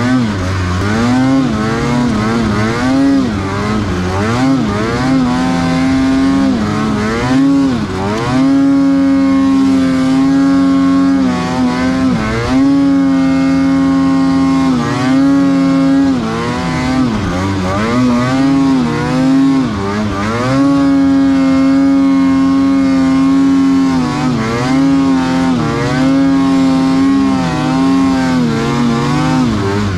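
Snowmobile engine revving up and down again and again, holding high revs for a few seconds at a time, as the sled is ridden through deep powder snow.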